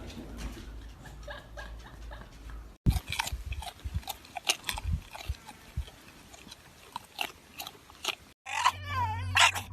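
A pet chewing, with irregular sharp crunches for about five seconds, between two abrupt cuts. About a second before the end it changes to a wavering high-pitched sound over a steady low hum.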